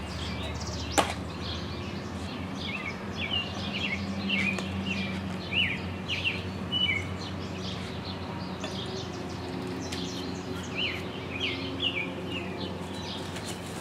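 Small birds chirping in quick runs of short chirps, over a low steady hum, with one sharp click about a second in.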